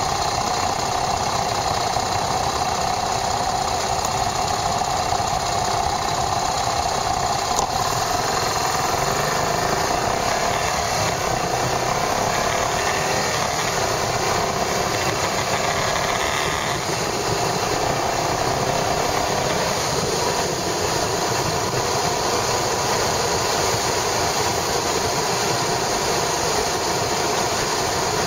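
Yamaha SRX400's single-cylinder four-stroke engine running steadily on the road, heard from a camera mounted on the bike, with a small change in tone about two-thirds of the way through.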